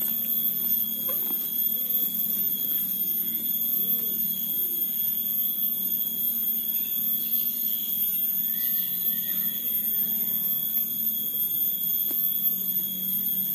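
Steady, shrill drone of insects (cicadas), unbroken and even in level, with a low hum beneath.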